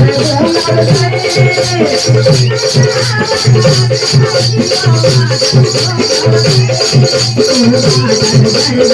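Adivasi folk dance music: a steady drum beat under a fast, even high rattle, with a melody line running above.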